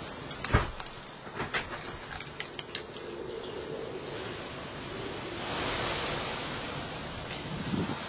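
Gusty night wind hissing and rustling through foliage, with a stronger gust swelling up about five seconds in and easing off near the end. A sharp knock comes about half a second in, the loudest thing heard, followed by a scatter of lighter clicks and taps over the next couple of seconds.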